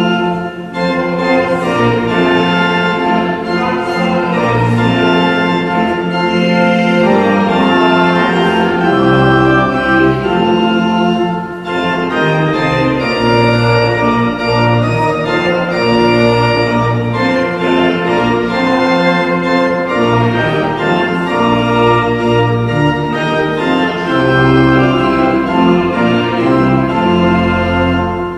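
Church organ playing sustained chords over a slowly changing bass line.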